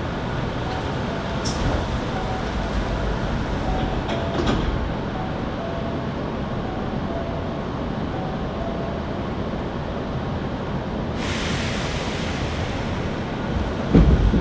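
Hankyu 7300 series train running, heard from inside the car: a steady rumble of wheels on rail with a faint whine, likely in a tunnel. The car is one noted for an unusual running noise. Near the end comes a short, heavy thump.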